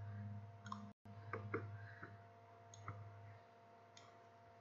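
Faint computer mouse clicks, about five spread over a few seconds, as on-screen objects are selected and deleted, over a low steady hum that fades out about three-quarters of the way through.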